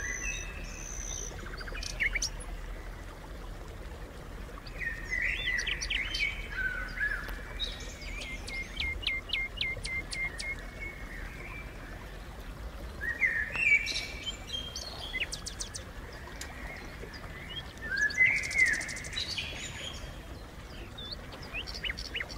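Songbirds singing in a garden: several short phrases of chirping and whistled notes, one of them a run of about three quick notes a second, over a steady low background rumble.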